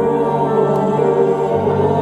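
Mixed choir of men's and women's voices singing sustained chords, the lower notes moving to a new chord about a second and a half in.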